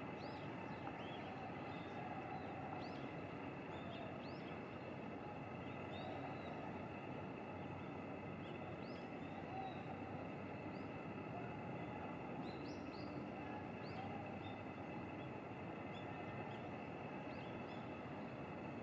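Outdoor ambience: a steady low background rumble, with small birds giving short, high chirps every second or two.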